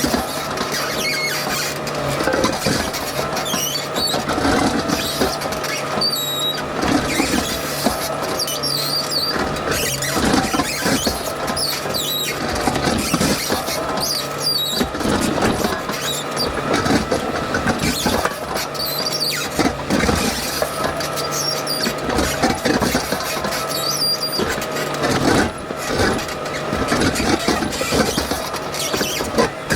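Digging machine running steadily while its bucket scrapes and knocks through gravel and rock, a steady whine sounding above the engine.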